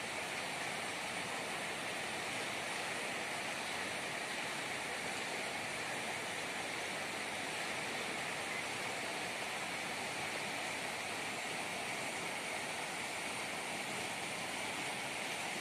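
Steady rush of water from a wide, muddy river running high and fast.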